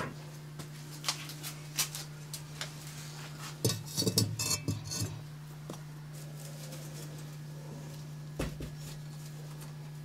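Glazed ceramic bowls being handled and set down, with scattered light clinks and a cluster of knocks and clinks a few seconds in, then one more knock later on, over a steady low hum.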